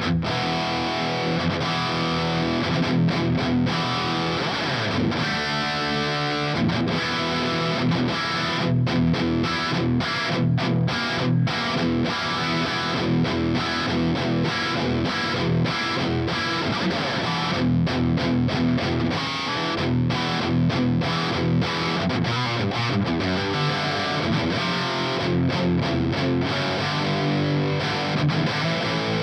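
Heavily distorted electric guitar riffing. A Music Man Majesty in standard tuning plays through a modified 50-watt Marshall JCM 900 SL-X valve head with a Fortin Blade boost into a Mesa Rectifier 4x12 cabinet, with plenty of brightness in the attack. The riffs are broken by many short, abrupt stops.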